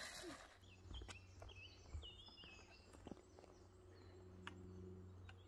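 Faint woodland ambience: short chirping bird calls and a few light snaps and crunches of footsteps on the forest floor, over a low steady hum.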